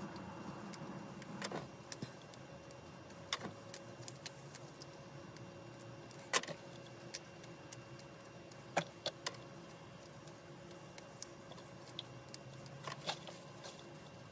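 Fresh mint leaves being plucked off their stems by hand, heard as a few faint snaps and ticks over a steady low hum.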